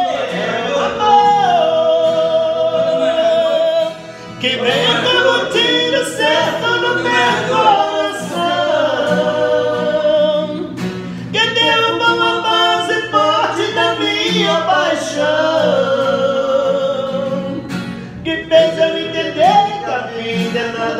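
Two men singing a romantic ballad in Portuguese over a strummed acoustic guitar, with long held notes that waver in vibrato. The singing drops out briefly about four seconds in.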